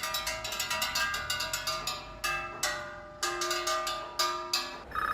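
Quick run of bright metallic strikes, like small bells being struck, about eight or more a second, thinning out to a few separate strikes after about two seconds. Right at the end a telephone starts ringing with a short warbling burst.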